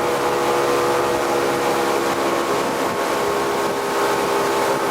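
Motorboat engine running steadily under way, a constant drone with a hiss of rushing noise over it.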